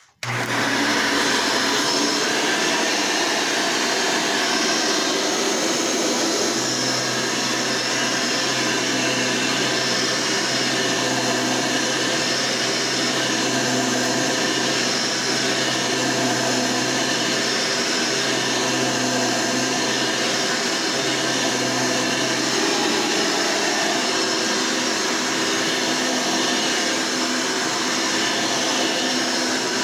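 Hoover Elite upright vacuum cleaner switched on and running steadily. It starts abruptly right at the beginning, and a low hum joins its whine for a stretch in the middle.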